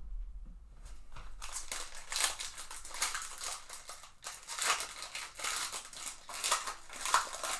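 Foil wrapper of a Panini Contenders baseball card pack being torn open by hand, crinkling and crackling in a rapid run of small rips that starts about a second in.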